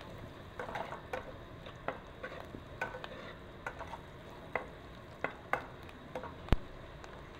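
Metal ladle stirring chopped aromatics in a metal pot, with irregular clinks and scrapes against the pan over a light sizzle of frying oil. One sharp clink about six and a half seconds in is the loudest.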